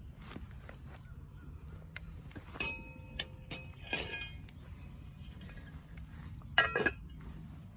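Camp cookware being handled: scattered clinks and knocks, some with a short ringing tone. The loudest cluster of clinks comes near the end.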